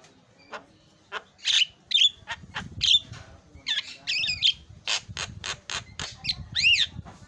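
Javan myna calling in a rapid, varied string of sharp clicks, squawks and short whistles, the mixed and imitated song kept birds are trained on, ending in an arched whistle near the end.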